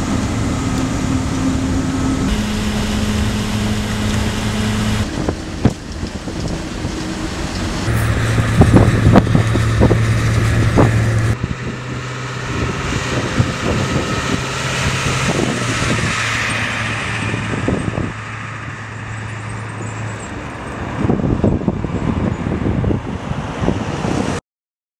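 Engine hum and road noise of a moving car, in several cuts: a steady drone that jumps to a new pitch at each cut, with clusters of knocks about eight seconds in and again near the end. It cuts off abruptly just before the end.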